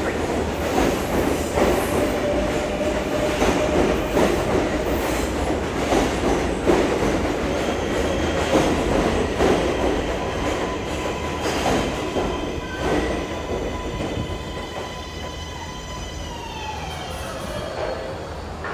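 R142A subway car under way: loud wheel-and-rail rumble with clicks over rail joints and some wheel squeal. From about halfway, the electric propulsion whine of several steady tones comes through, then glides down in pitch near the end as the train slows and the rumble eases.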